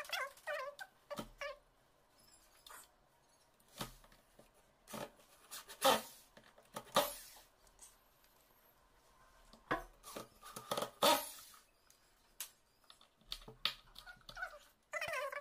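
Sped-up handling of mortise lock hardware and hand tools on a door: about a dozen scattered sharp clicks and knocks of metal parts. A brief high-pitched chirping comes in the first second or so.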